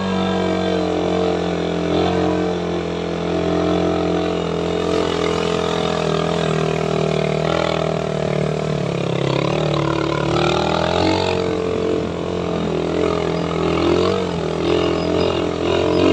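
Suzuki Raider 150 motorcycle engine running steadily under way, its pitch wavering up and down for a few seconds in the middle as the throttle changes.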